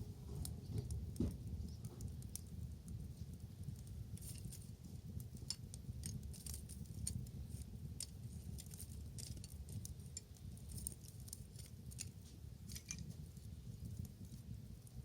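Wood fire crackling: irregular sharp pops and snaps, many a second, over a low steady rumble.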